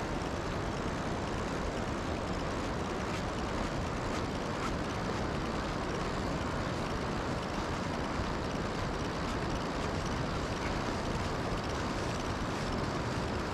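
Steady rushing of a fast-flowing trout stream, an even unbroken water noise.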